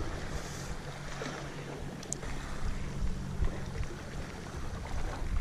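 Wind rumbling on the microphone, mixed with sea washing against the shoreline rocks; a steady noise with no distinct events.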